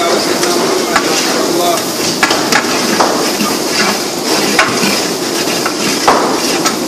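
Garlic, onion and coriander sizzling in oil in a large aluminium pot, stirred with a long-handled metal spatula that scrapes and knocks against the pot several times at irregular intervals.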